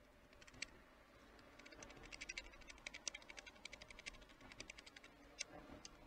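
A quick run of faint, sharp clicks, about ten a second for a few seconds, with a louder single click near the start and another near the end: a small animal at a feeding station pecking or gnawing at its food.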